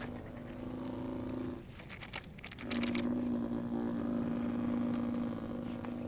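Small electric gear motors of a radio-controlled construction model whining at a steady pitch. They stop for about a second, with some clicking, roughly a second and a half in, then run again louder.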